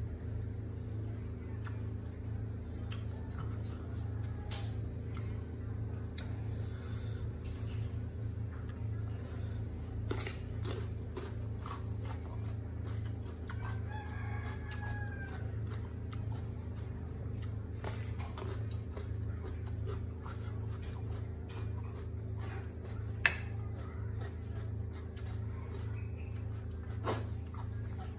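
Eating sounds: chewing and crunching with scattered sharp clicks, and one loud click about three-quarters of the way through. A rooster crows once, about halfway through.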